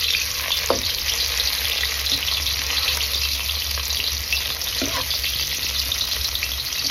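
Hot oil in a wok sizzling and crackling steadily as sliced vegetables deep-fry briefly and are stirred with a metal skimmer, with two faint knocks. The vegetables are being flash-fried for a few seconds to seal them before the stir-fry.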